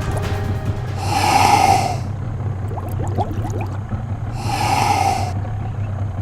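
Boat motor running steadily at low speed, with two loud whooshes about a second long, one about a second in and another near the five-second mark.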